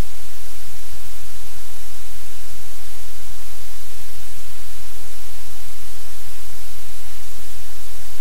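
Loud, steady hiss of static with a low electrical hum underneath, unchanging throughout.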